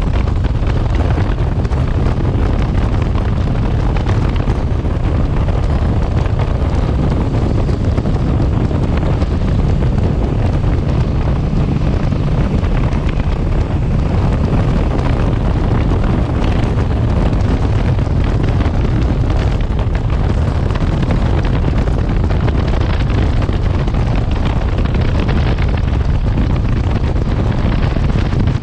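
Wind buffeting the microphone on a moving motorcycle, a steady loud rush strongest in the bass, with the motorcycle's engine running underneath.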